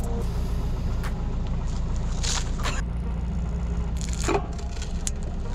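Forklift engine running steadily with a low hum, and a few short crinkling crunches as the fork tine presses down into a wrapped Snickers bar on a steel rail, the last and loudest about four seconds in.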